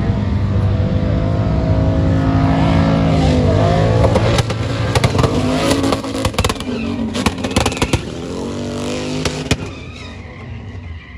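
Car engine revving hard at high rpm as a sedan drifts and spins its tyres in smoke, its pitch rising and falling. From about four seconds in, a string of sharp pops and cracks cuts through, and the engine fades near the end.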